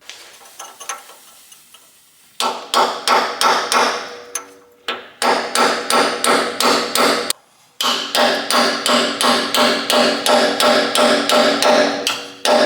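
Hammer blows on a steel boiler tube, about three ringing metallic strikes a second. They start about two seconds in, with a short break a little past halfway. This is the tube being driven and collapsed to free it from a traction engine's tube plate.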